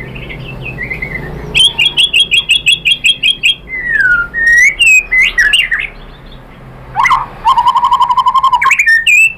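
White-rumped shama singing a varied song. It opens with a fast run of repeated notes, then has gliding whistled slurs, and after a short lull another rapid run of notes about a second later.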